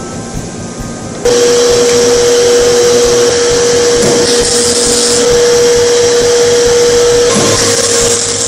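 MIG welding arc on aluminium, laying a continuous bead. About a second in it strikes up and runs as a steady loud hiss with one constant tone beneath it.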